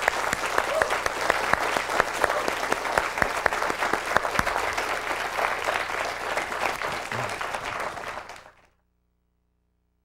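Audience applauding, many hands clapping together steadily, then cutting off suddenly about three-quarters of a second before the end.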